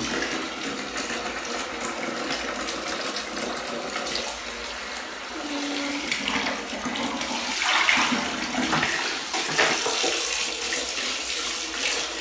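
Running water pouring steadily into a plastic toy bucket in a bathtub, with a few louder splashes in the second half.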